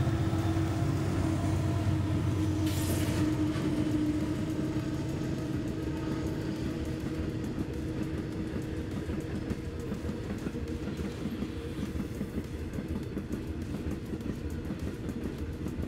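Diesel freight locomotives passing close with their engines running, followed by a long string of ore wagons rolling by with a steady clickety-clack of wheels on the rails. The engine sound fades after about four seconds and leaves the quieter rolling of the wagons.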